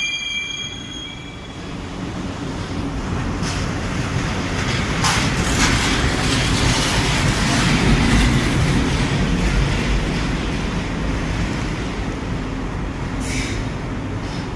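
Passenger train moving through a railway station. Its wheels squeal in steady high tones that fade out about a second in, then the rumble of the coaches on the rails swells and eases off again, with short hisses a little after the middle and near the end.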